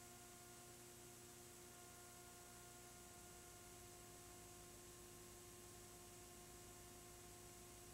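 Near silence: a faint steady hum and hiss.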